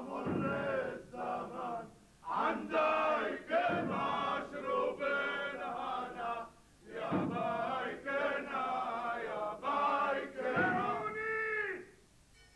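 A group of men's voices chanting together in about five short phrases with brief pauses between them. The last phrase is held and falls away shortly before the end.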